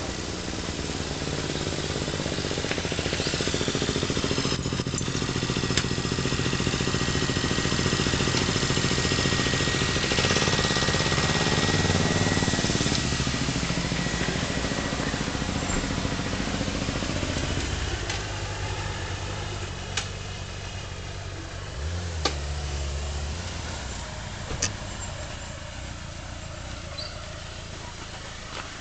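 A motor vehicle's engine going past: it grows louder for about twelve seconds, its pitch bending as it passes, then fades away. A few sharp clicks near the end.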